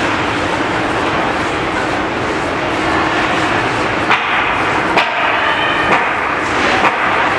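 Ice-rink game noise during a ringette game: a steady wash of crowd and arena sound. In the second half come four sharp knocks, a little under a second apart, typical of sticks striking the ring or the boards.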